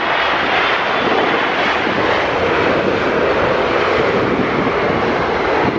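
Jet airliner's engines, a loud, steady rush of jet noise.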